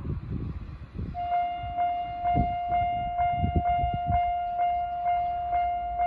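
Homemade railroad crossing's electronic warning bell starting about a second in: a steady ringing tone that pulses about twice a second, the crossing's alarm for an approaching train. Low rumbling and a few dull knocks sit underneath in the first half.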